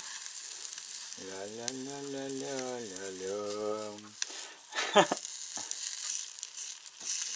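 Floured pink salmon pieces sizzling as they fry in a frying pan, with a wooden stick moving them about in the pan. There is one sharp knock about five seconds in.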